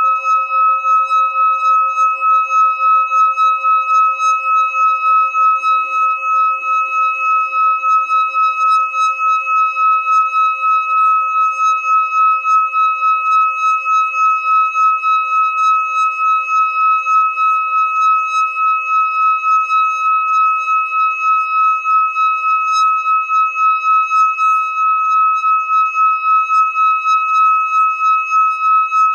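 Singing bowl sung by circling a mallet around its rim: a steady ringing tone with a strong higher overtone, its loudness wavering in a regular pulse about three times a second.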